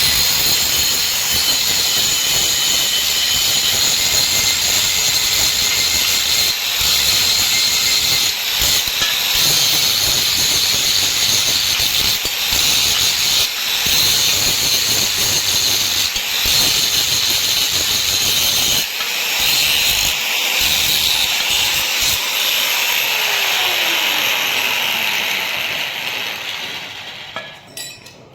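Stick (arc) welding on steel pipe: a steady, loud electric-arc hiss and crackle held for a long run, tailing off near the end as the arc is broken.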